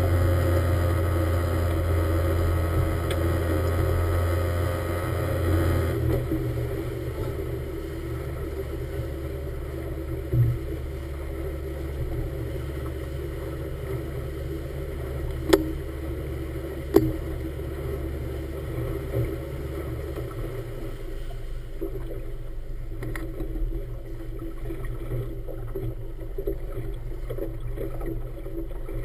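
Small motorboat's engine running under way with water rushing along the hull, then throttled back about six seconds in and slowing; its low drone drops away about twenty seconds in, leaving lapping water. A thump and, later, two sharp clicks stand out.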